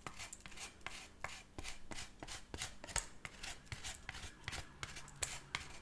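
Parmesan cheese being put onto a plate of spaghetti: a faint, quick and uneven run of light taps and scrapes, about five a second.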